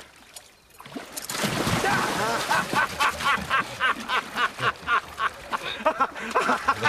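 A man laughing heartily, a long run of rapid ha-ha bursts at about three a second. It follows a short rush of noise like splashing water about a second in.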